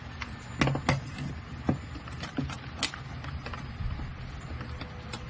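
One-handed plastic bar clamp knocking against the wooden workbench and workpiece and clicking as its trigger is squeezed to close it on a freshly glued joint. Irregular sharp clicks and knocks, several loud ones in the first three seconds and lighter ones after.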